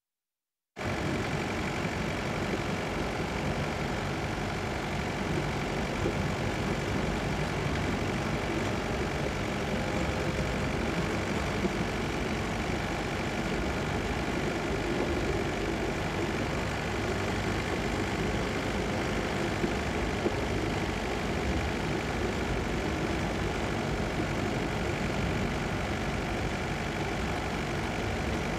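Steady running noise of a motor vehicle's engine, starting about a second in after a moment of silence and holding even throughout.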